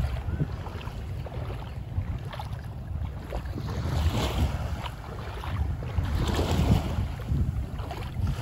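Small waves washing onto a sandy beach, swelling about four seconds in and again toward the end. Wind buffets the microphone throughout as a low rumble.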